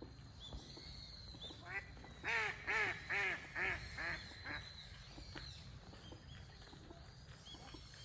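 A duck quacking in a run of about seven quacks, roughly two a second, starting about two seconds in, loudest in the middle and fading toward the end.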